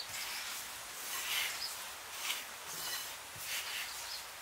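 A hand working rice flour and grated coconut together in a metal pan: a run of soft, irregular rustling and rubbing strokes of dry flour.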